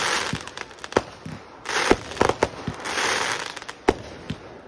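Aerial fireworks going off: a quick series of sharp bangs from the shells bursting, with stretches of hissing crackle in between.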